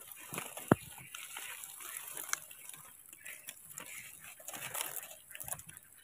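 Rustling and crackling of dry leaves and banana litter as baby monkeys scramble over the ground and a dried banana trunk, with one sharp knock less than a second in.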